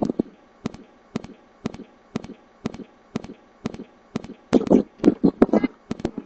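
Sharp handclaps at a steady two a second, turning louder and closer together about four and a half seconds in.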